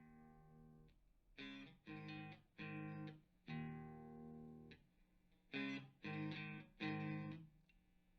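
Electric guitar played through an amp and speaker cabinet: a series of short chord stabs with gaps between them, and one longer chord ringing for about a second in the middle.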